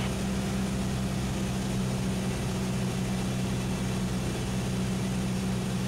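Cessna 172SP's four-cylinder Lycoming IO-360 engine and propeller droning steadily in flight, heard inside the cabin over a steady hiss of air.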